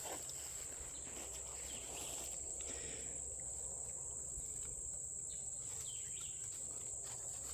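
Steady high-pitched drone of insects, with a few faint rustles underneath.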